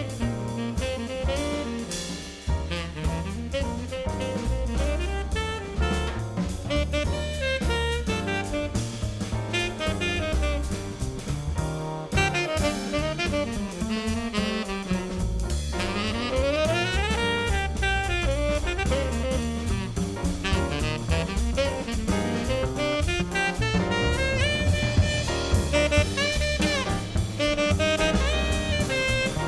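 Background jazz music: saxophone over bass and drum kit.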